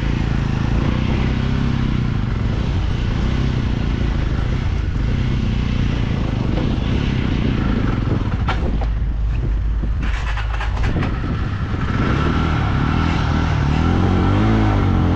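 Motorcycle engine running at low speed while riding over a rough, rocky dirt track. A few sharp clicks and rattles come about two thirds of the way through, and the engine pitch rises and falls near the end.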